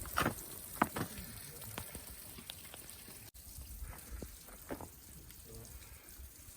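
Footsteps crunching in snow: irregular crisp crackles, louder in the first half and softer after about three seconds.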